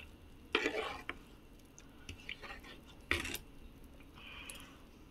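Metal ladle stirring milk in a saucepan, scraping and knocking against the pot, with the loudest scrapes about half a second in and about three seconds in. The stirring mixes yogurt starter into the lukewarm milk to set it as sweet yogurt.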